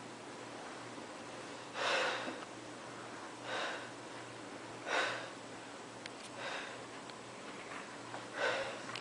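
A person breathing hard in short, sharp, noisy breaths about every one and a half to two seconds, with a faint steady low hum underneath.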